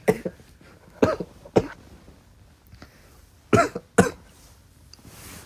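A man coughing in short, sharp bursts, five coughs over about four seconds, after choking on something that went down the wrong way.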